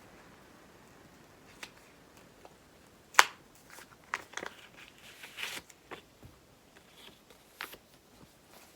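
Plastic blind-bag packets of acrylic cards being handled and peeled open: brief crinkling and rustling with scattered light clicks, the loudest a single sharp click about three seconds in.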